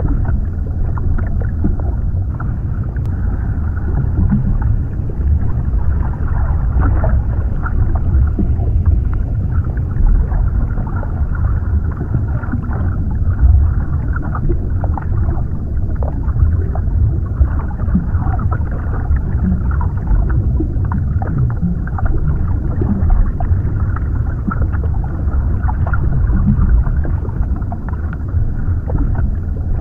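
Underwater ambience recording: a steady low rumble with scattered small clicks and crackles, muffled as if heard below the water surface.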